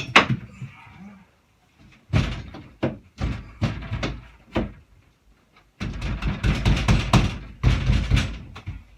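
Workshop sliding door rolled along its track twice, rumbling with a string of knocks and thuds as it runs and stops.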